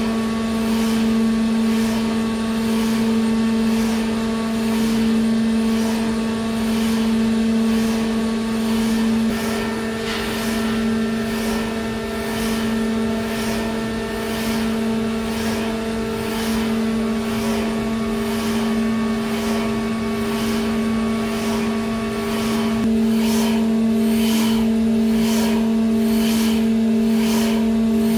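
High-speed pantograph test rig running: a steady low machine hum with a regular pulsing hiss over it. The hum shifts slightly about nine seconds in, and the pulsing grows stronger about 23 seconds in.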